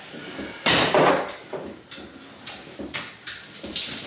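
A pair of interior doors pushed open with a bang about a second in, followed by smaller knocks and rustling.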